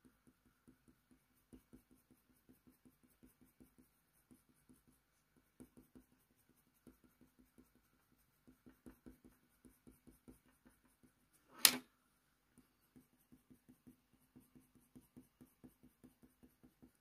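Faber-Castell Polychromos coloured pencil scratching faintly on hot-press watercolour paper in quick short strokes, several a second, as fur is laid down. One sharp tap stands out about two-thirds of the way through.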